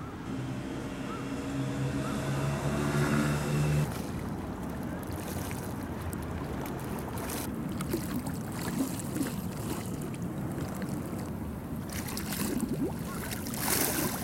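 A boat engine running with a steady hum for about four seconds, then cutting off abruptly. After that, river water sloshing and lapping, with gusts of wind noise on the microphone growing loudest near the end.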